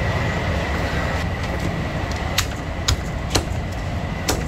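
Four sharp knocks in the second half, metal utensils striking a thick wooden chopping block while roast duck is being cut, over a steady low background rumble and a faint steady high tone.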